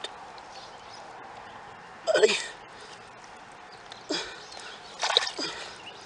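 A man's voice in short bursts: one word about two seconds in, then brief grunt-like sounds about four and five seconds in, over a steady background hiss.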